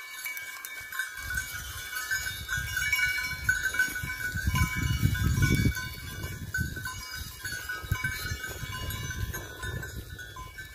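Bells on a grazing flock of sheep tinkling and ringing steadily. A low buffeting rumble on the microphone comes in about a second in and is strongest around the middle.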